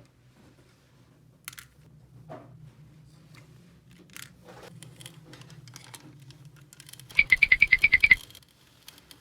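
Light clicks and handling of small plastic toy parts, then about seven seconds in a loud, rapid electronic trill from a toy, roughly a dozen even pulses in one second, which cuts off suddenly.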